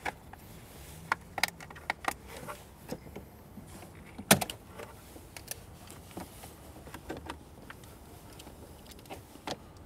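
Clicks and clatter of a jump-starter's clamps being handled and clipped onto the car battery's terminals, with one sharp click about four seconds in.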